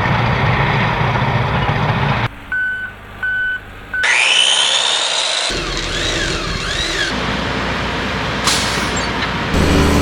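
A run of cut-together vehicle and construction-site sounds: heavy engine noise, then a reversing beeper sounding three times, a rising whine, some rising-and-falling warbling tones, and engine noise again near the end.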